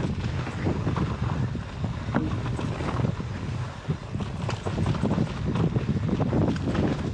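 Mountain bike rolling fast down a rough dirt and rock singletrack: tyre rumble with frequent short rattles and knocks from the bike over bumps, and wind buffeting the microphone.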